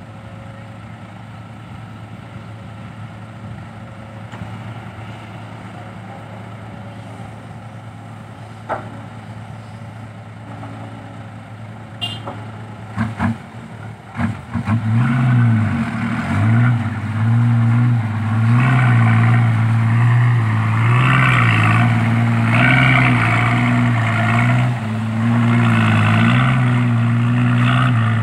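Diesel engines idling steadily, with a few sharp knocks about halfway, then an Isuzu Deca 195 dump truck's diesel engine goes loud through its new triple exhaust tips, revving up and down repeatedly as the loaded truck pulls away.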